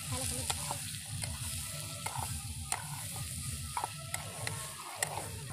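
Small fish frying in oil in an aluminium kadhai, sizzling steadily, while a flat metal spatula stirs and turns them, with irregular sharp clicks and scrapes of the spatula against the pan. A low rumble runs underneath.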